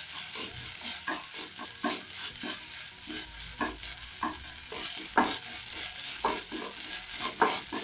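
Minced beef sizzling as it fries in a nonstick frying pan, stirred with a wooden spatula to work in tomato paste, the spatula scraping and tapping against the pan at irregular moments.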